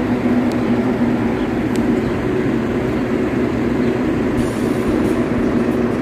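A steady mechanical drone with a constant low hum.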